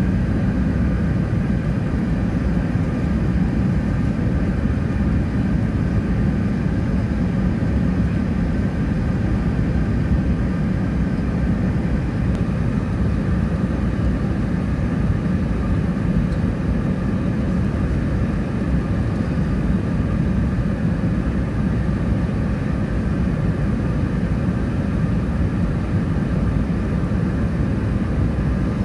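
Steady low rumble of an Airbus A380's engines and rushing air, heard inside the cabin at a window seat, with a faint steady hum above it.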